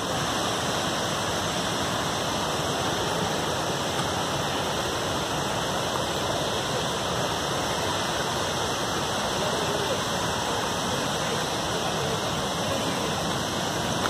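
Steady rushing of water, even and unbroken, from falling water out of sight.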